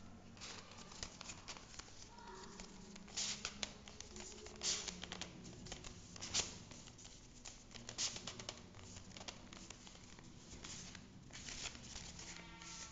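Folded origami paper rustling and crackling as the units of a transforming eight-point paper ninja star are slid open into a ring. The sound comes in irregular rustles with several sharper crackles.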